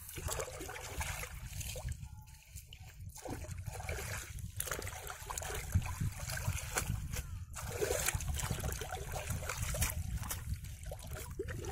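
Shallow muddy water splashing and sloshing as hands work in it, with water trickling and dripping from water hyacinth lifted out near the end.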